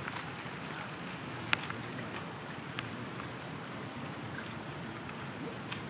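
Steady outdoor background noise with a few short sharp clicks, the loudest about a second and a half in.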